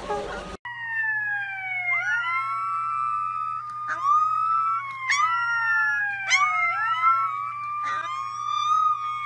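A puppy howling: long overlapping cries that slide slowly down in pitch and swoop back up, broken by a few short sharp yelps.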